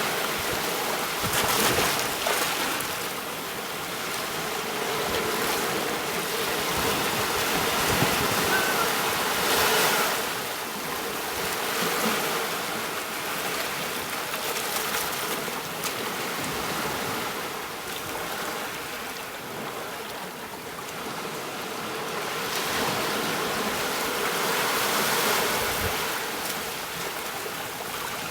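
Sea waves washing onto a beach, the surf swelling and easing every few seconds, with a faint steady tone held underneath.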